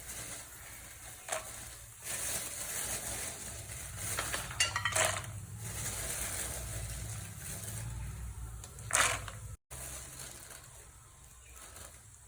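Peanuts frying in hot oil, sizzling, with a ladle stirring and clattering against the pan now and then. The sound drops out briefly about three-quarters of the way through and is quieter afterwards.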